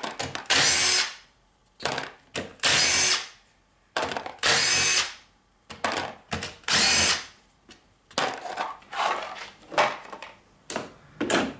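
Cordless drill-driver spinning bolts out of the top of a Ford M5OD-R1 five-speed manual transmission. It runs in four bursts of about a second each, the motor pitch rising and falling, with short clicks between them, then in shorter runs near the end.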